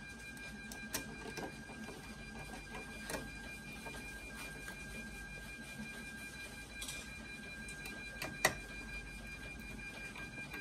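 Light clicks and taps of metal parts and a screwdriver being handled inside a Zebra ZT410 thermal label printer's metal chassis, the sharpest about eight and a half seconds in, over two steady high tones.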